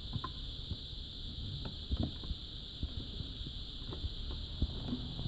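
Scattered light clicks and taps from handling the opened metal CD mechanism of a car radio, over a steady hiss.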